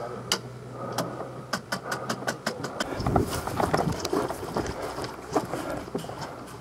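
Scattered sharp cracks of airsoft guns firing across the field, with a quick run of shots about one and a half to two and a half seconds in, and dull low thumps near the middle.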